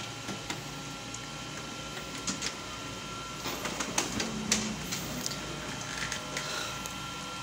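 Kyocera ECOSYS M6630cidn colour laser multifunction printer with its cover just closed after a toner bottle change: a steady faint whine with scattered light clicks and knocks from the machine, most of them about three and a half to four and a half seconds in.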